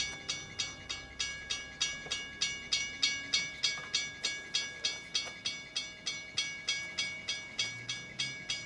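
Railroad crossing warning bell ringing rapidly and evenly, about three and a half strikes a second, the signal that a train is approaching.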